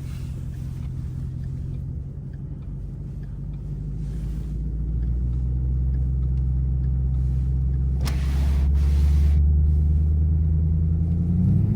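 Ford Mustang V8 engine running at low revs, its rumble growing louder over several seconds as it works the car through snow. A brief rush of noise comes about eight seconds in, and the engine revs up briefly near the end.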